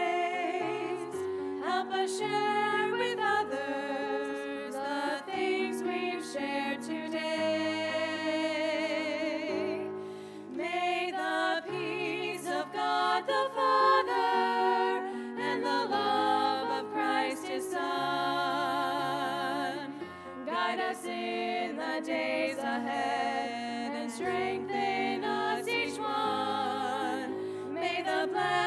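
A choir singing a slow piece with instrumental accompaniment, the voices holding long notes with vibrato.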